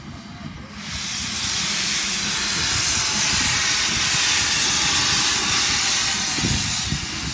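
Steam locomotive's open cylinder drain cocks hissing loudly as the engine approaches slowly. The hiss starts about a second in and eases off near the end.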